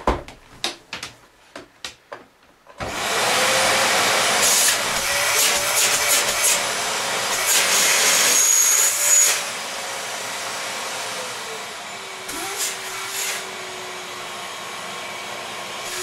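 A few handling clicks and knocks, then a Samsung 1600 W bagged canister vacuum cleaner switches on about three seconds in with a sudden loud rush of air. About nine seconds in it drops to a quieter, steady run, with a faint steady hum, on its low-speed setting.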